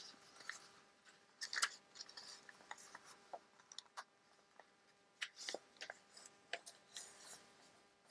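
Paper and small craft tools being handled: quiet, irregular rustles, scrapes and light clicks as papers are worked into a handmade document holder.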